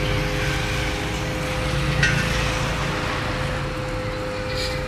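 Steady hum of a small electric motor, with one constant mid-pitched tone over a low rumble, and a short clink about two seconds in.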